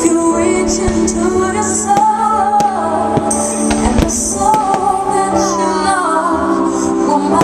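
A patriotic song with a woman singing plays over the show's loudspeakers, with a couple of sharp firework bangs, about two and four seconds in.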